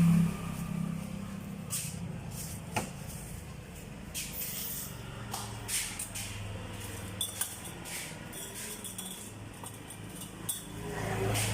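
A steady low hum with scattered light clinks and knocks.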